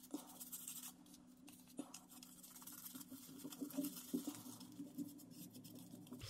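Shaving brush scrubbing soap lather into a bearded face: faint, scratchy bristle strokes with small clicks, over a low steady hum.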